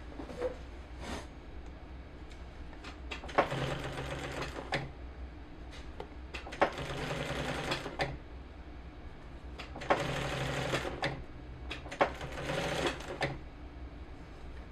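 Sewing machine stitching a new zipper into a jacket in four short runs of about a second each, with brief pauses and a few clicks between them.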